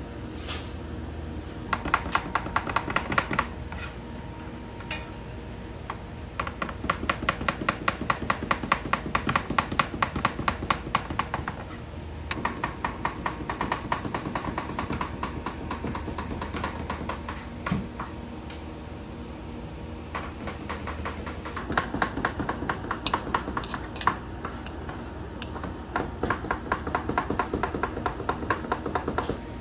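Runs of rapid, evenly spaced tapping or clicking, about six a second, coming in several bursts of a few seconds each, over a steady hum of kitchen background noise.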